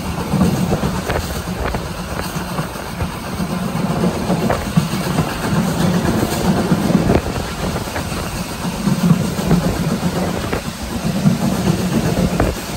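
Lancashire & Yorkshire Railway Class 25 0-6-0 steam locomotive 52044 running with its train, heard from the carriage behind it. A low rumble swells and fades every second or so, and the wheels click over rail joints.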